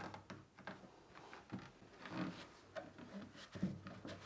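Faint handling sounds of glue clamps being set and tightened on a cello rib: a few light clicks and knocks with soft rubbing between them.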